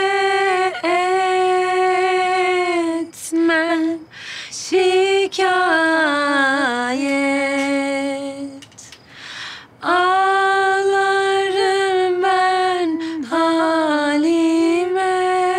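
Women singing a slow Turkish song without accompaniment, in long held, wavering notes with short pauses between phrases.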